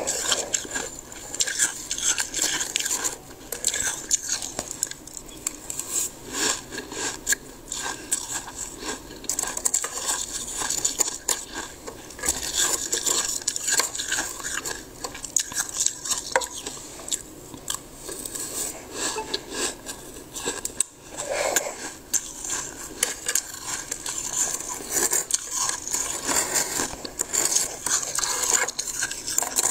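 Spoon scraping thick, soft freezer frost off the freezer wall and scooping it up: a continuous crunchy rasping, dense with small crackles, close to the microphone.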